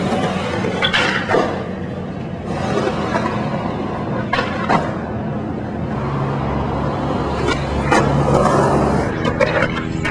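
Skateboard wheels rolling over rough concrete with several sharp clacks of the board popping and landing.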